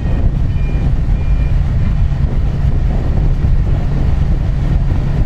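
Steady low rumble of wind buffeting the microphone, mixed with the running engine of a camera vehicle moving at racing speed.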